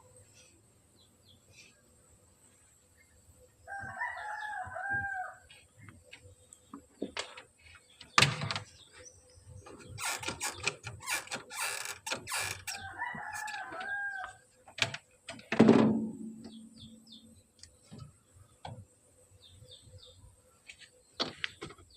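A rooster crowing twice, each crow lasting about a second and a half, with a string of sharp knocks and taps in between; the loudest knocks come about 8 and 15 seconds in.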